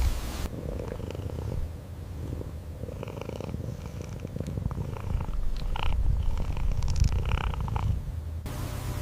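Domestic cat purring steadily, a continuous low rumble, with a few brief higher-pitched sounds over it.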